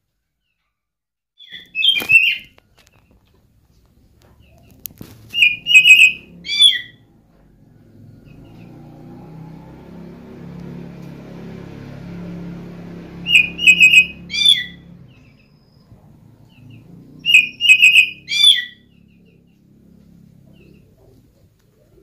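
Oriental magpie-robin (kacer) calling in four short, loud cat-like phrases, each a few quick sharp notes ending in a downward-falling note, with pauses of several seconds between them.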